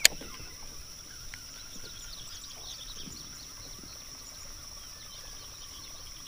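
Steady high-pitched drone of insects, with birds chirping here and there over it; a single sharp click right at the start.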